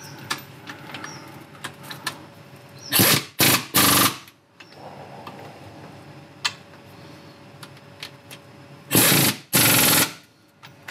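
Air impact wrench (rattle gun) hammering the new transmission mount's bolts tight. It runs in three short bursts about three seconds in, then two longer bursts about nine seconds in.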